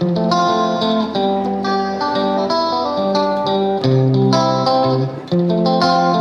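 Background music: a plucked guitar playing a steady melody of picked notes and chords.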